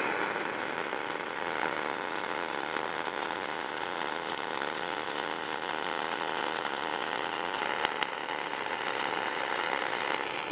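Gas-shielded (dual-shield) flux-cored arc welding in spray transfer: the arc gives a steady, even hiss, a smooth-running bead.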